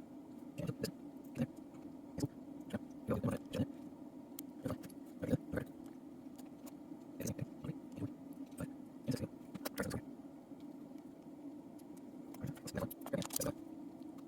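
Small irregular metal clicks and taps as tiny lock pins and springs are handled and set into a padlock core, over a steady low hum.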